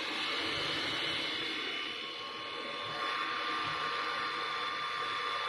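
Single-screw floating fish feed extruder running, a steady mechanical whir with high whining tones. The sound dips briefly about two seconds in, and the whine returns stronger about three seconds in.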